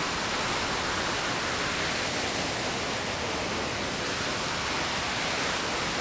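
Aira Force waterfall: a steady, even rush of falling water.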